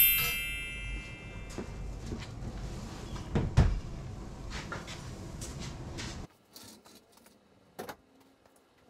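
A rising whoosh transition effect dies away, then the steel door of a home-made powder-coating oven is opened and its wheeled parts rack handled, with knocks and clanks, the loudest about three and a half seconds in. A low steady rumble underneath cuts off suddenly about six seconds in, and one more knock comes near the end.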